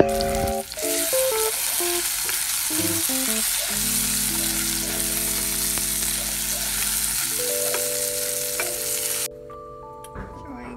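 Food sizzling in a frying pan, a steady hiss that cuts off suddenly about a second and a half before the end, over background music of sustained notes.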